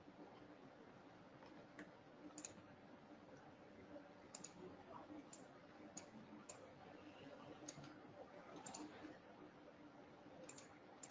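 Faint, scattered computer mouse clicks, about ten irregularly spaced single clicks, over a low steady hum of room tone.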